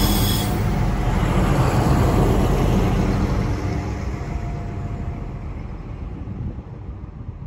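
Finnish diesel locomotives rumbling past at low speed, with a brief high wheel squeal at the start. The running noise dies away steadily over the last few seconds.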